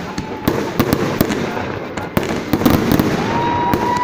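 Fireworks display: aerial shells bursting overhead in a rapid, irregular run of bangs and crackles.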